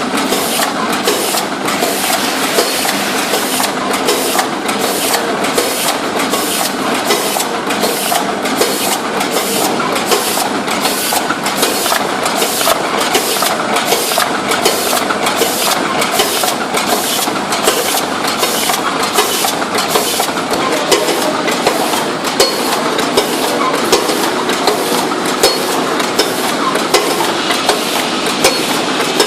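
Automatic cartoning machine running continuously while packing washing powder into cardboard boxes: a steady mechanical clatter with an even, quick rhythm of repeating strokes.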